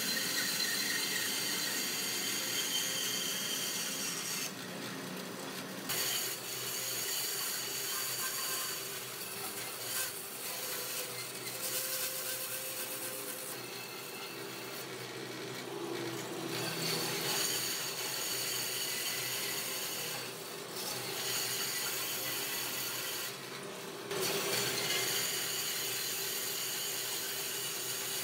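Band saw cutting through a thick block of solid wood, the blade making a steady, even hiss through the cut. The cutting noise eases off briefly three times as the blade comes out of one cut and into the next.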